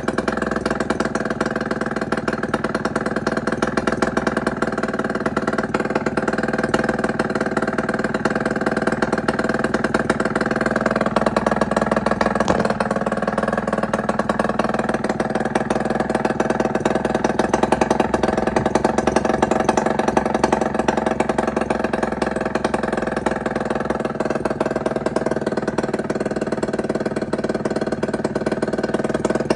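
1999 RS50's 50cc two-stroke engine running with its exhaust removed, a steady, fast buzz whose pitch wavers about halfway through. The bike starts hard and will not idle; its carburettor turns out to be missing its idle adjust screw.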